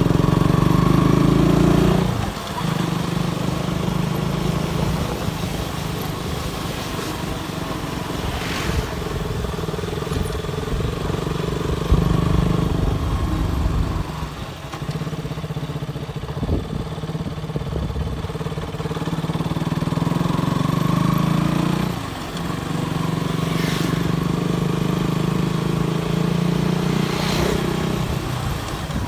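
Motorcycle engine running while riding along at a steady pace; its note drops off sharply twice, about two seconds in and again past twenty seconds, then picks up again.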